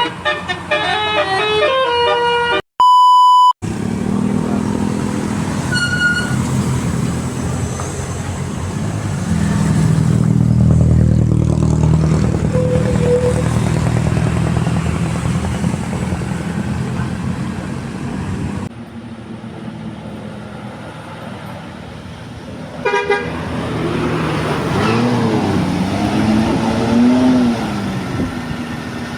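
Bus telolet 'basuri' musical horn playing a run of notes at the start and again near the end, the later tune sliding up and down in pitch. Between them a bus engine runs with a low rumble for about fifteen seconds. A short, steady electronic beep sounds about three seconds in.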